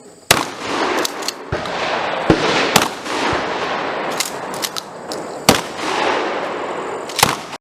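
Shotguns fired by a line of shooters: about ten irregular blasts, some overlapping, each followed by a long echo that rolls away.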